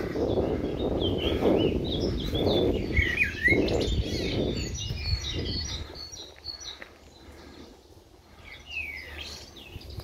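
Several small birds singing and chirping, with short high notes and quick gliding calls. A low rumbling rustle under them in the first half dies away about six seconds in.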